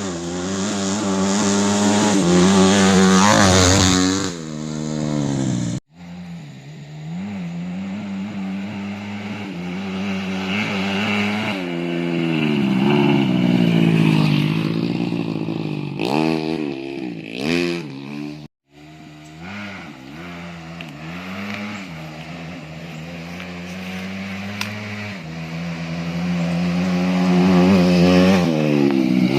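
Single-cylinder four-stroke engine of a Yamaha Jupiter underbone motorcycle bored up to 130cc, revving up and down under riding, its pitch climbing and falling repeatedly. The sound breaks off abruptly about 6 seconds in and again about 18 seconds in, each time starting again.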